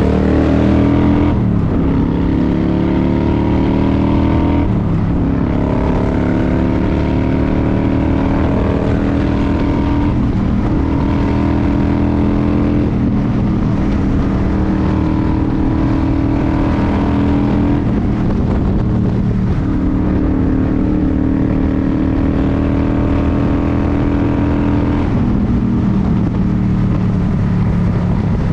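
Vehicle engine running steadily under load, its pitch changing abruptly every few seconds as the ride goes on.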